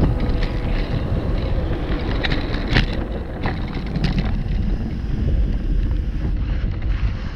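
Wind buffeting the microphone over the low rumble of a blokart land yacht rolling fast across firm sand, with a few sharp clicks and knocks.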